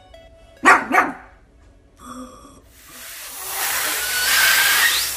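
A pug gives two loud, quick vocal calls, heard as "poo poo". From about three seconds in, helium hisses out of a disposable helium tank's nozzle into a foil walking-dog balloon, growing louder, with a thin rising whistle near the end.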